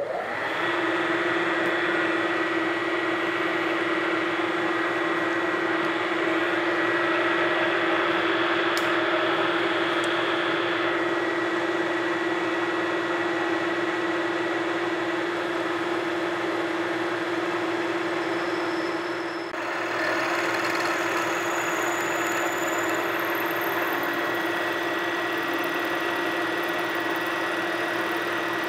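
Vertical milling machine's spindle running steadily with a drill bit cutting a hole into a metal block: a steady hum with a thin high whine over it. About two-thirds of the way through the sound dips briefly, and faint high squeaks from the cut come in afterward.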